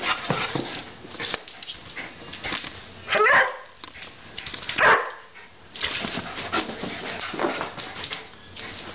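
Greyhound playing, giving two short, loud barks rising in pitch about three and five seconds in, amid the scuffling of its feet on carpet and floor.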